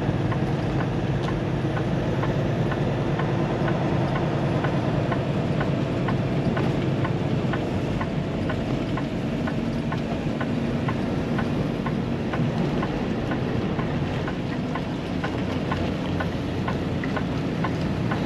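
Semi truck's diesel engine running at low speed, heard from inside the cab, with a faint regular tick about twice a second over it.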